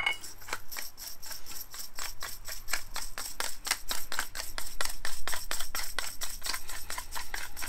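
Hand pepper mill grinding peppercorns: a steady, even run of crunching clicks at about five or six a second.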